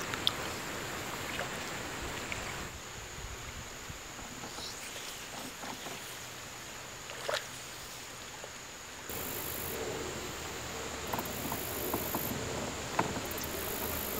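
Canoe paddles dipping and pulling through calm creek water, with light splashes, drips and a few short clicks.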